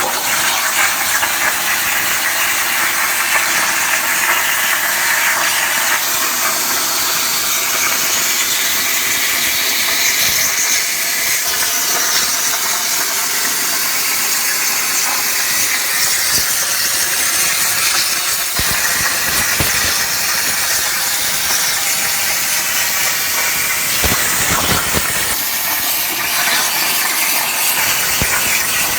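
CNC plasma cutter's torch cutting metal plate: the loud, steady hiss of the plasma arc and its air jet.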